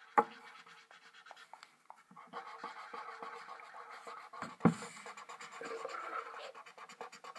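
Felt-tip markers scratching on paper in quick small strokes as they colour, with two sharp clicks, one just after the start and one about halfway through.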